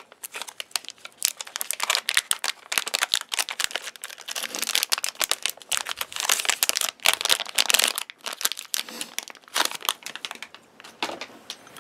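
Clear plastic Ziploc packaging crinkling and rustling in the hands as ferro rods are pulled out of it, a dense run of crackles that thins out near the end.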